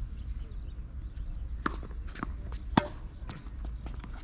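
Tennis ball being struck by rackets and bouncing on the court during a rally: a few sharp knocks about half a second apart, the loudest a little past halfway, followed by lighter clicks.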